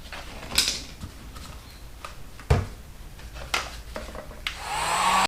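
An electric hot-air blower runs steadily while it heats a motorcycle tire to soften it for fitting, with several sharp knocks from the tire and wheel being handled. Near the end the blower's whine rises in pitch and grows louder, then cuts off suddenly.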